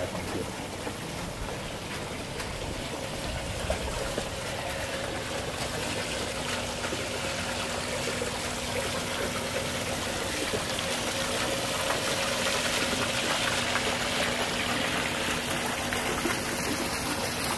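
Steady rush of running water, growing a little louder over the stretch, with a faint steady hum coming in a few seconds in.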